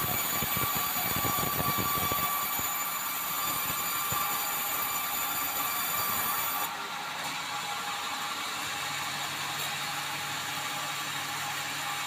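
Sawmill band saw running and ripping a red meranti beam: a steady machine noise with thin high ringing tones. It turns a little quieter just past halfway.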